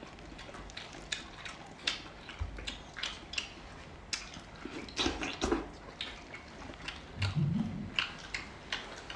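Close-up eating sounds of someone chewing pig's head meat: irregular wet smacks and clicks of the mouth, with a brief low hum of the voice about seven seconds in.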